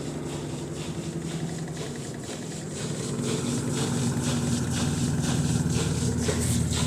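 Midea washing machine in its spin cycle: a steady motor-and-drum hum with a fast run of repeated knocking or rattling, growing louder about halfway through. It is the spin noise whose cause the owner could not find.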